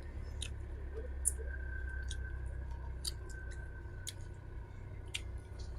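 Eating close to the microphone: scattered small clicks and crackles of chewing and handling food, over a low steady hum.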